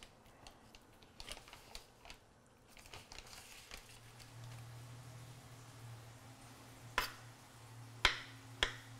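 Knife cutting kiwi on a wooden cutting board: faint soft taps at first, then three sharp knocks of the blade on the board near the end. A low steady hum comes in about halfway through.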